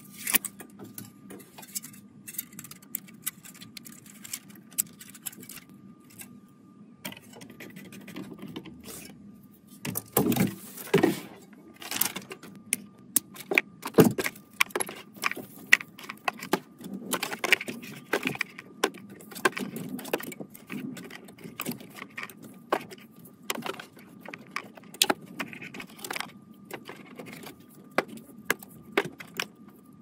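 Computer parts being handled and fitted by hand: an irregular run of small clicks, taps and light rattles of hard plastic and metal pieces, with louder clatters about ten seconds in and again a few seconds later.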